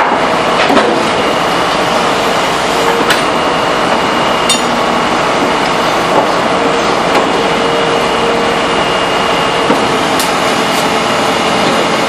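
Gravel sub-base sliding and pouring out of a raised dump truck body over the steady running of heavy engines. Loud and continuous, with a faint steady high whine and a few sharp clicks of stones.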